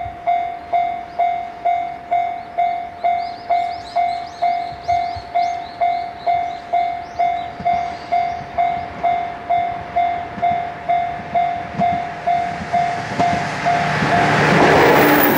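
Japanese level-crossing warning bell ringing in a steady electronic ding about twice a second while the barrier is down. About thirteen seconds in, an approaching train's rumble and wheel noise build up and drown out the bell as the train passes the crossing.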